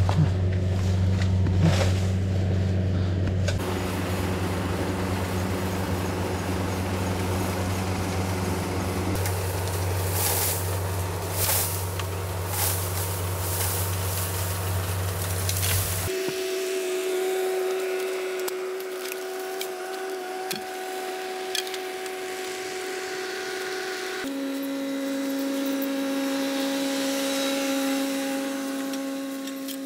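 An electric power saw cutting bamboo: a steady low motor drone with several sharp cracks, stopping abruptly about sixteen seconds in. After it, a steadier, higher-pitched hum carries on and drops in pitch about eight seconds later.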